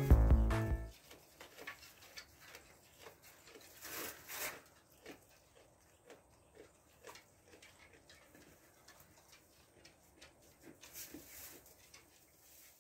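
Intro music cuts off within the first second. Then come faint, scattered rustling and soft clicks from a Nigerian Dwarf goat moving and nosing through straw bedding, a little louder about four seconds in and again near the end.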